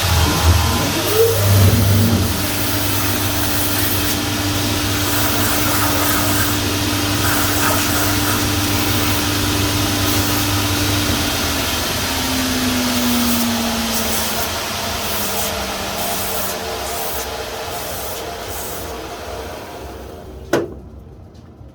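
Shoe repairer's grinding machine running while the leather sole is ground, with a steady hum and whirring noise; about halfway through it is switched off and winds down, its tone falling in pitch as it slows. A single sharp click near the end.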